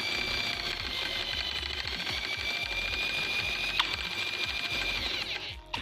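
Electric drill running at a steady speed with a whine, turning the shaft of a Sea-Doo 787 Mikuni oil pump in reverse to test that it pumps oil out of its nozzles. One short click sounds about four seconds in, and the drill winds down and stops near the end.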